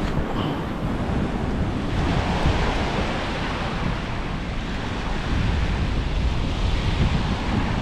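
Surf breaking and washing up a sandy beach, with wind rumbling on the microphone; the wash grows a little louder about five seconds in.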